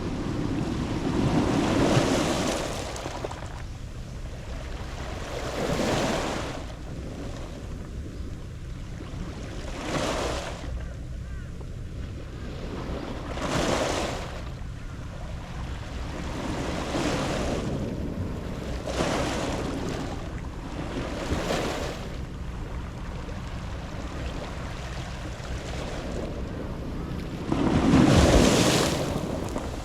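Waves breaking and washing up a beach of round pebbles (mongdol), each swell rushing in and drawing back every few seconds, the largest one near the end.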